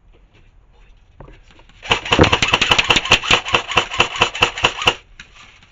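Airsoft electric rifle (AEG), a Lancer Tactical Proline, firing one full-auto burst of about three seconds: rapid, evenly spaced shots over the whir of its motor and gearbox, stopping sharply.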